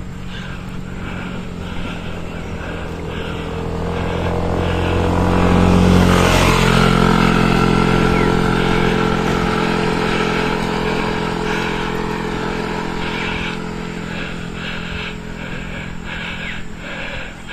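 Small motor scooter approaching from behind and passing close, its engine running steadily. It is loudest about six seconds in, where its pitch drops, and then fades as it rides on ahead up the hill.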